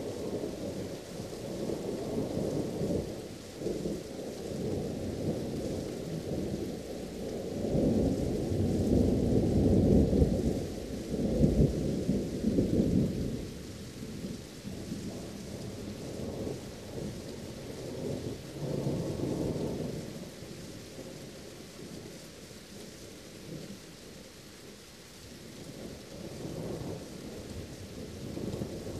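Steady rain with rolling thunder. The rumbles come in long, deep swells, the loudest about a third of the way in, with weaker rolls later.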